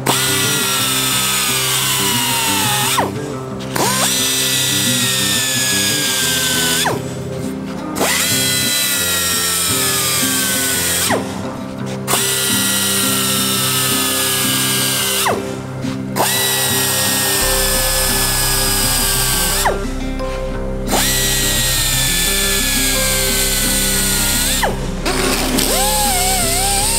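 Narrow-belt handheld belt sander grinding the steel edge of a hammer face in about six passes. Each pass is a whine that falls in pitch as the belt bears on the steel, followed by a short break and a quick rise as the tool spins back up. Background music plays throughout.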